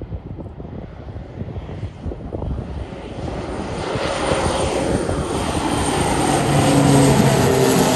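Beechcraft King Air twin-turboprop on final approach with gear down, its engine and propeller noise growing louder as it closes in. A thin high turbine whine sits over it, and a steady propeller hum comes in near the end. Wind buffets the microphone at the start.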